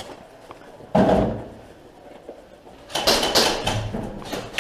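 A door slamming about a second in, a single heavy bang that dies away over half a second. Near the end comes a stretch of irregular clattering and scuffing.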